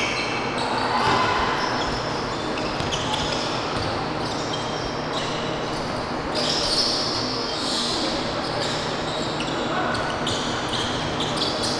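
Basketball game on a hardwood gym court: a ball dribbling, sneakers squeaking in short high-pitched chirps, and players' voices.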